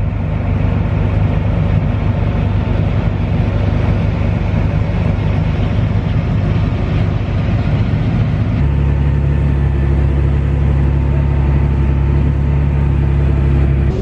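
John Deere 9870 STS combine harvesting corn: a loud, steady machinery drone from its engine and threshing works. About two-thirds of the way through the sound switches abruptly to a steadier, deeper hum.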